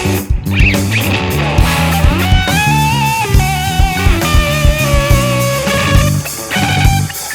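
A math rock band playing live on electric guitar, bass and drums. About three seconds in, a high note is held and wavers.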